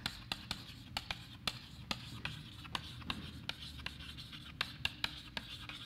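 Chalk writing on a blackboard: a quick irregular run of sharp taps and light scratches as letters are written, over a faint steady low hum.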